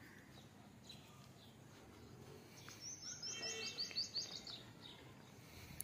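A bird singing a quick run of short, high chirps for about two seconds in the middle, over a faint outdoor background hiss.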